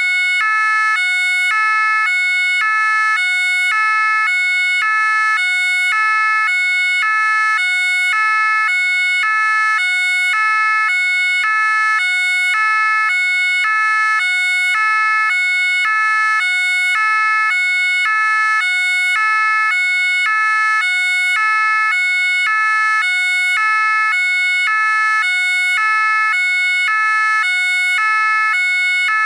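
French gendarmerie two-tone siren sounding continuously, switching steadily between a higher and a lower note about every half second.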